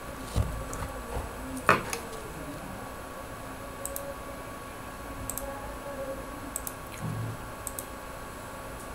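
A few faint, scattered clicks of a computer mouse over a steady low hum, with one louder knock about two seconds in.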